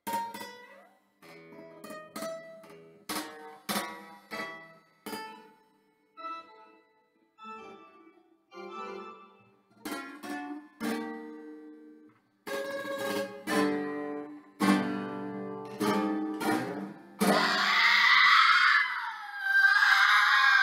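Acoustic guitar played solo: single picked notes and chords with short pauses between them, growing into louder strummed chords. Near the end a loud sung, wailing voice comes in over the guitar.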